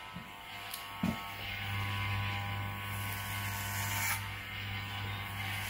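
Corded electric hair clippers buzzing steadily as they cut through hair. The buzz grows louder about a second in, just after a small click.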